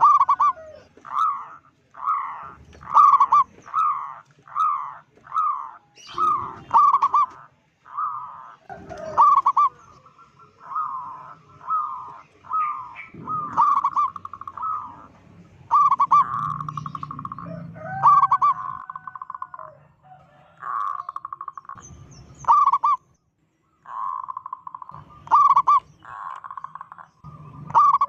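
Zebra dove (perkutut) cooing: a long series of short trilled coos, roughly one a second at first, with longer rolling coo phrases in the second half.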